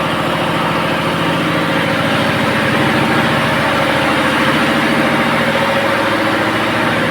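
Machinery running steadily, with a fast, even pulse over a low hum.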